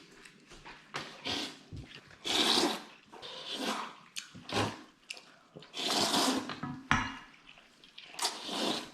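People slurping curry rice-noodle soup (khao poon), several separate slurps about a second apart, with a few sharp clicks in between.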